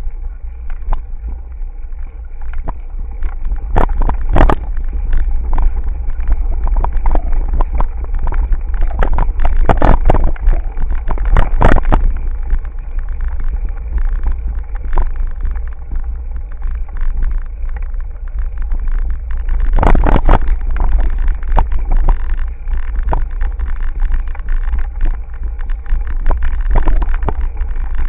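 Mountain bike rolling over a gravel dirt road, heard from a camera mounted on the bike or helmet: a steady wind and road rumble on the microphone, with frequent knocks and rattles as the bike goes over bumps and stones.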